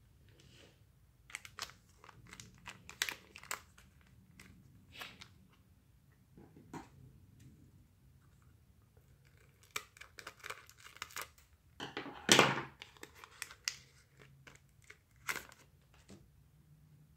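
Foil wrapper of a Pokémon card mini pack being crinkled and torn open by hand, in two spells of sharp crackles, the loudest about twelve seconds in.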